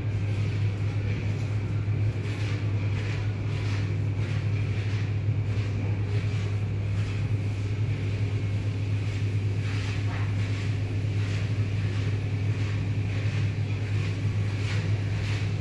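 Automatic tunnel car wash running, heard through a window: a steady low machine hum from its motors and pumps, with repeated swishing strokes, about two a second, as the hanging cloth mitter strips slap and sweep across a foam-covered car.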